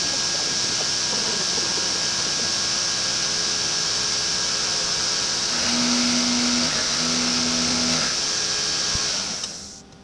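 Milling machine spindle running with an end mill cutting a notch across metal square tubing clamped in a vise, a steady high-pitched running noise. A lower hum comes in twice for about a second each in the second half, and the machine runs down near the end.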